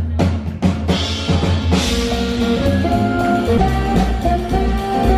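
Live jazzy band music: an upright double bass and a drum kit playing together with sustained melody notes, and a cymbal crash about two seconds in.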